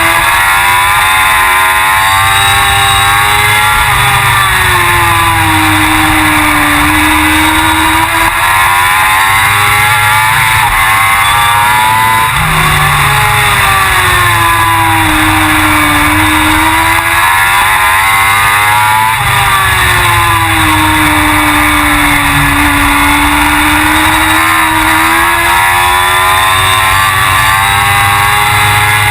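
Suzuki GSX-R1000 World Superbike's inline four-cylinder engine running hard around a racing lap, its pitch rising and falling in long sweeps every few seconds as it accelerates and brakes.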